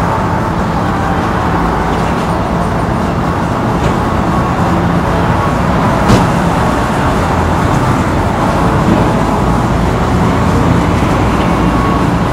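Steady road traffic noise, with a single short click about six seconds in.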